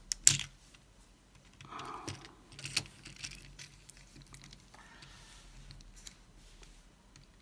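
Small clicks and light scraping of plastic parts as a LiPo battery is eased out of a Sphero BOLT robot's plastic chassis by its cable. One sharp click near the start is the loudest, followed by scattered light ticks and rustles.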